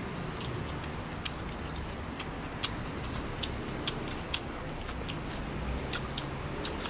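Someone eating rice from a porcelain bowl with wooden chopsticks: irregular sharp clicks of the chopsticks against the bowl and of chewing, a few a second, over a steady low background rumble.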